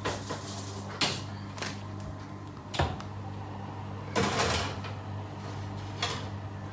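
Electric oven's drop-down door being opened and a metal tray put back onto the oven shelf: a few separate sharp clanks and knocks, with a longer scrape about four seconds in, over a steady low hum.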